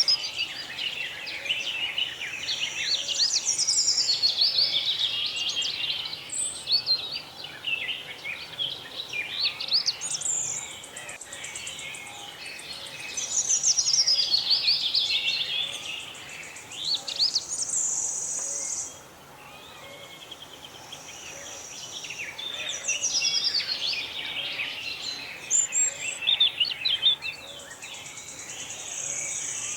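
Several birds singing and chirping in quick, overlapping phrases. A high, steady insect buzz comes and goes every few seconds.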